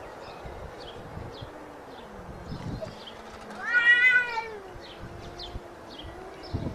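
Cat yowling in a face-off with another cat: a low, drawn-out growling moan that wavers in pitch, with one loud rising-and-falling yowl about four seconds in. These are threat calls made before a fight.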